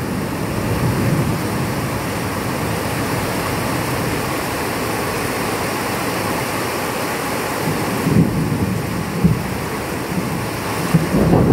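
Steady rain in a thunderstorm under a low, continuous rumble of thunder, with a few short low thumps in the last few seconds.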